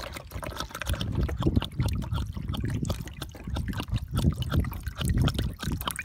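Water pouring from a plastic jug's flexible spout into water standing in a PVC test ring, with uneven pulses of splashing and gurgling, as the ring is kept topped up for an infiltration test of porous asphalt.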